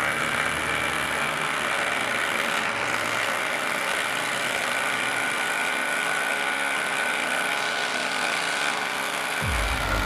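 Cordless impact drivers hammering steadily as they drive fasteners, a continuous buzzing rattle with a motor whine.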